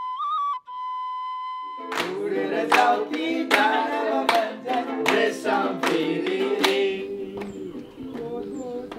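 A bamboo flute holds a single note with a slight waver, ending about two seconds in. A group of people then sing together, clapping their hands to a steady beat about twice a second. The singing and clapping thin out near the end.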